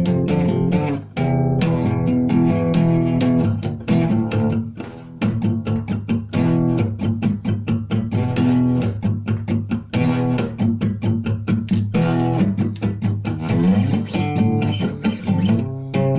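Music led by plucked guitar, with bass, playing busy runs of notes.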